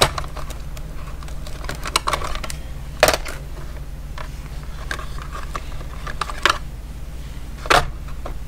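A handful of separate clicks and knocks of hard plastic being handled as a pen-style wood-burning iron and its tips are set into a plastic storage case, the loudest about three seconds in and near the end, over a steady low hum.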